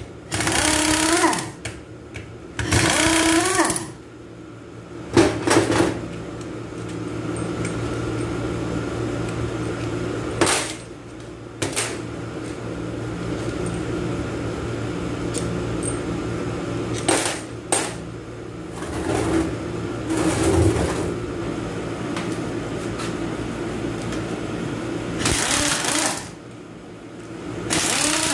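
Pneumatic impact wrench rattling in short bursts as it spins out the bolts on a Hyundai A6GF1 six-speed automatic transmission's bell housing. Bursts come a few times in the first few seconds and again near the end. A steady machine hum and a few sharp metal clicks fill the time between them.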